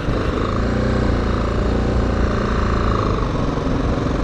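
Single-cylinder engine of a BMW G310GS motorcycle running at a steady low pace on a dirt trail; its note eases off about three seconds in.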